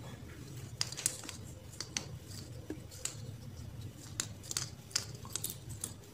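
Irregular light clicks and scratches of hand work as thin transformer wire is wound by hand onto a PVC-pipe bobbin, rewinding the burnt coil of a ding-dong doorbell.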